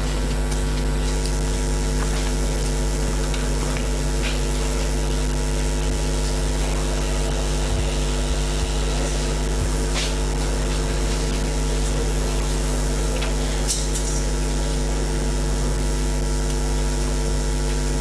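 A steady machine hum with an even hiss over it, holding constant with no change in pitch or level, with a couple of faint clicks.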